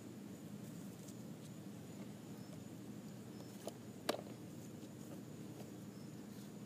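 Faint handling noise of a Nerf blaster being reloaded: a few soft clicks and one sharp click about four seconds in, over a steady low background noise.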